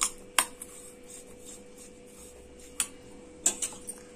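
A spoon stirring a coarse, dry peanut-and-spice stuffing in a steel bowl, the spoon clinking against the metal a handful of times, with two clinks close together near the end.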